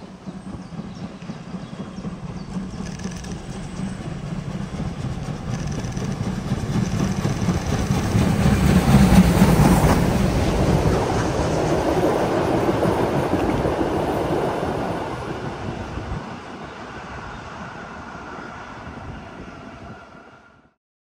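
A train passing by the track, growing louder to a peak about nine seconds in, then fading, before the sound cuts off just before the end.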